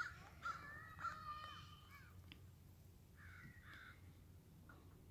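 Faint bird calls: several overlapping calls in the first two seconds, then two short falling calls a little after three seconds.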